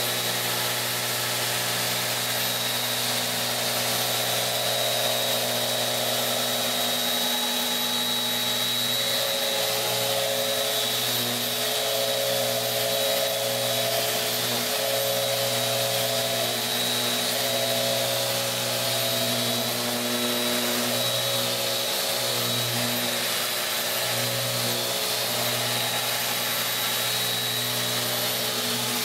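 Bosch GET 75-150 eccentric sander running steadily as it sands a pine board with a mesh disc: a continuous motor hum with a thin high whine, wavering slightly as the sander is pushed across the wood.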